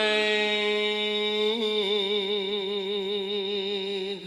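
A cải lương singer holds the word 'quê' as one long sung note, with vibrato setting in about two seconds in, over a steady low accompanying tone.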